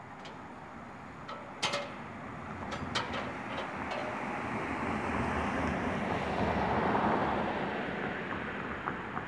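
A vehicle passing by, its noise swelling to a peak about seven seconds in and then fading. A few sharp clicks come in the first four seconds.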